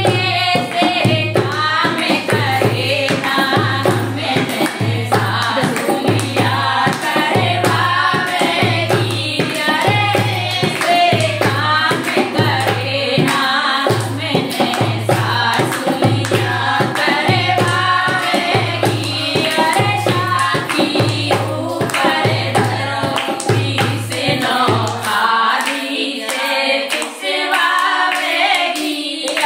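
Women singing a Haryanvi folk song (lok geet) to hand claps and a dholak. The dholak keeps a steady low stroke about once a second, then stops about 25 seconds in while the singing and clapping go on.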